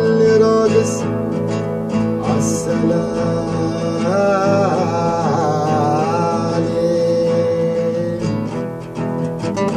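A man singing long, wavering held notes over a strummed classical guitar. The guitar strokes are most prominent near the start and again near the end.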